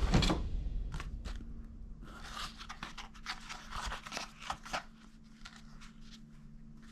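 Handling noise: scattered light clicks, scrapes and rustles, busiest in the middle and thinning out toward the end, over a faint steady hum.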